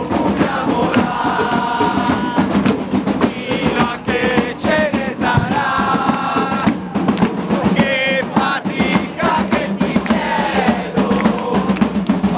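A crowd of many voices singing a song together, over music.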